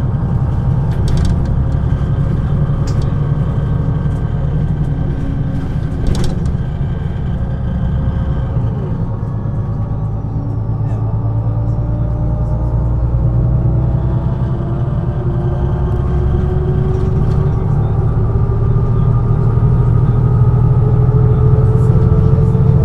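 MAN NG 313 articulated city bus's diesel engine running under load, its pitch rising steadily through the second half as the bus picks up speed. A few sharp knocks or rattles in the first few seconds.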